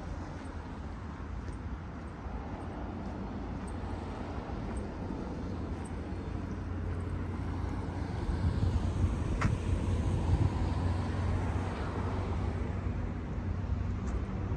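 Outdoor street traffic ambience: a steady low rumble of road traffic that swells about halfway through as a vehicle goes by, with one brief sharp tick near the middle.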